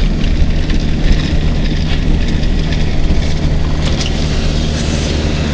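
Truck engine running steadily as the truck drives, heard from inside the cab.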